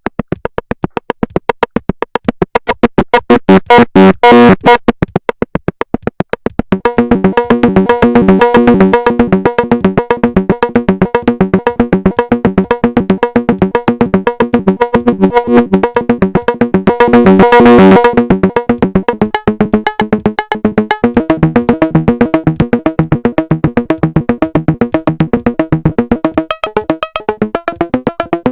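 Make Noise 0-Coast synthesizer playing a fast arpeggio of short, evenly spaced notes driven by an arpeggiator. The tone turns brighter briefly twice, about four seconds in and again near eighteen seconds.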